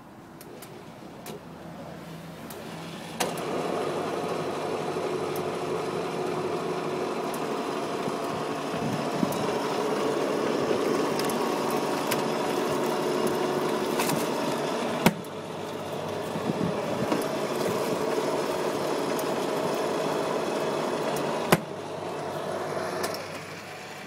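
Tefal portable washing machine's wash motor starting about three seconds in, then running steadily with a hum while the agitator churns clothes in soapy water. Two sharp clicks come about halfway and again near the end, and the running sound drops off after the second.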